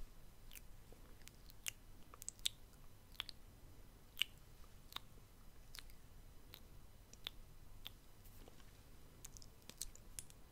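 Quiet close-miked ASMR mouth sounds: short, wet clicks and smacks of the lips and tongue, coming irregularly, about two a second.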